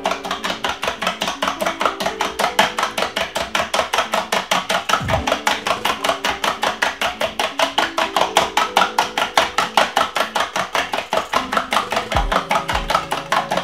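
A fork beating two raw eggs in a stainless steel bowl, its metal tines clicking rapidly and evenly against the bowl at about five or six strokes a second.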